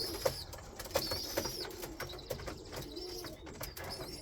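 Pigeons in a loft: soft coos now and then, with thin high squeaking calls of the young birds repeating about once a second, and many light clicks and taps.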